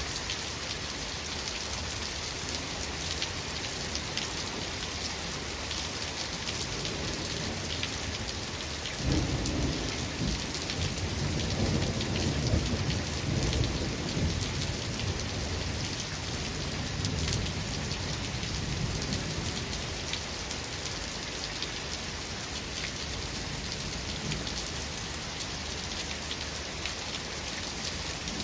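Steady rain falling, with a roll of thunder that breaks in suddenly about a third of the way through, rumbles for several seconds and slowly dies away.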